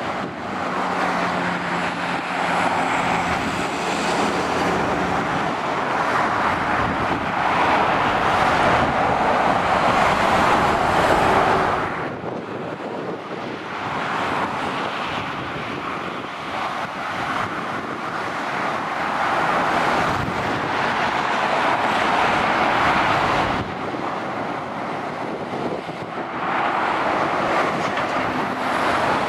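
Traffic on a dual carriageway passing below: lorries and cars, their tyre and engine noise swelling and fading as each vehicle goes by. A low engine hum runs through the first few seconds, with brief lulls about twelve seconds in and again around twenty-four seconds.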